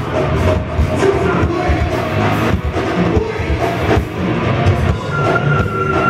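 Heavy metal band playing live, with distorted guitars, bass, drums and vocals. A long high note is held near the end.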